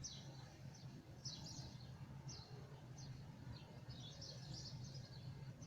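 Small birds chirping: a string of short, high, downward-slurred chirps, several a second at times, over a steady low hum.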